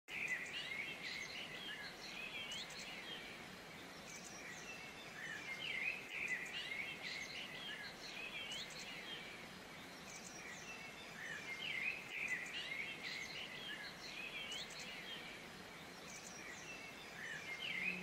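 Birds chirping and calling continuously over a faint, even background hiss.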